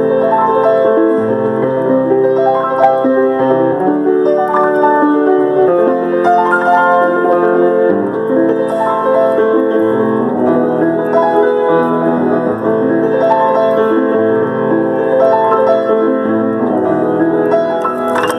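Piano playing: chords and a moving melody, played continuously.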